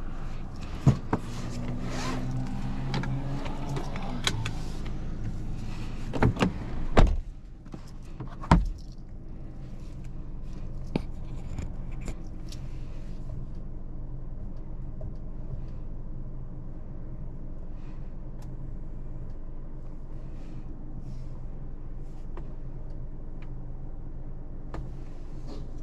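Inside a Mercedes-Benz C-Class cabin: a steady low hum with a short electric-motor whine over the first few seconds. Sharp clicks come about a second in, and several loud thumps between about six and nine seconds in.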